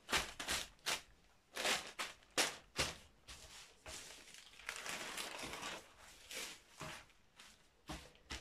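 Thin transparent plastic sheeting crinkling and rustling in short irregular bursts as hands spread it and smooth it flat over a large paper pattern sheet, with a longer rustle about halfway through.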